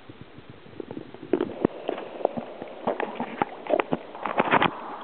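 Irregular knocks, clicks and crackles recorded through an underwater camera's microphone, starting about a second in and growing busier toward the end, over a steady hiss.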